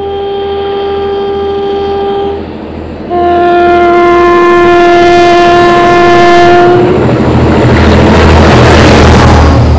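UK locomotive sounding its two-tone horn: a higher note, a short break, then a long lower note. The train then passes close by with a loud rush of noise over a low pulsing rumble.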